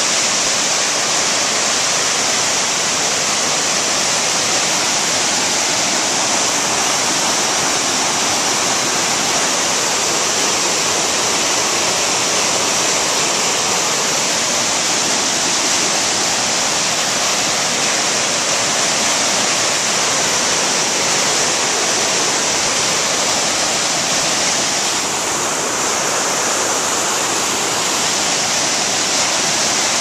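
Waterfall cascading over rock ledges: loud, steady rushing of white water.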